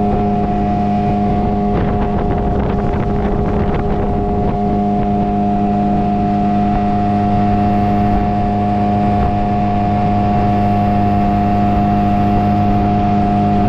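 Small motorboat's engine running steadily under way at one even pitch, with rushing water and wind beneath it.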